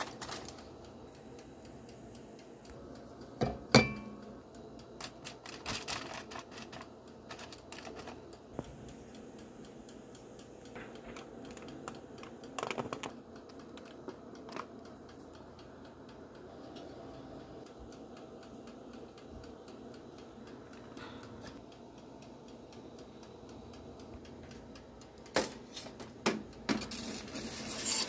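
Food being handled on a foil-lined baking tray: scattered taps and crinkles, with a sharp knock about four seconds in. Near the end come louder metal knocks as the tray is pushed into a toaster oven.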